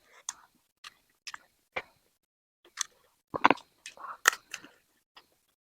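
Close-miked chewing of spicy chicken: scattered short mouth clicks and smacks, with a denser run about three and a half to four and a half seconds in.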